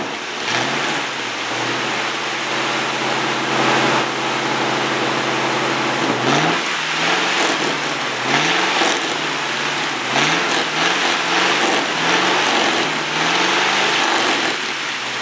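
Chevy small-block 350 V8 running, idling steadily at first, then from about six seconds in revved in short repeated blips, a little more than one a second. The engine is pouring white smoke from burning oil, which the owner puts down to heavy blow-by past worn piston rings.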